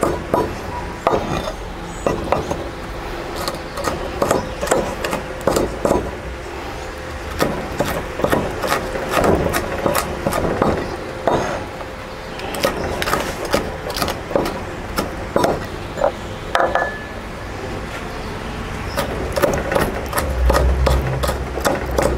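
Kitchen knife chopping sweet red pepper on a wooden cutting board: runs of quick blade strikes on the wood, broken by short pauses. A low hum comes in near the end.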